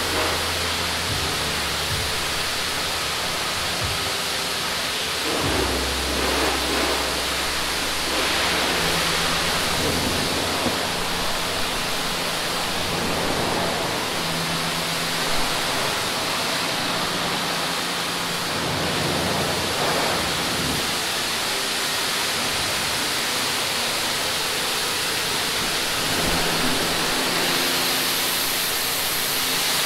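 Steady rushing noise, even and unbroken, with a low hum underneath that shifts a few times.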